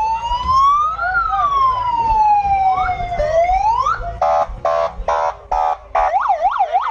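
Police car siren: a slow wail climbing and falling, then four short blaring horn blasts, then a fast yelp warbling about three times a second. Low vehicle rumble underneath.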